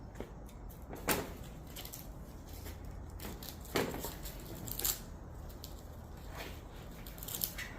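A few scattered knocks and clunks, like objects or furniture being moved and set down, the sharpest about a second in and near four seconds, over a low steady hum.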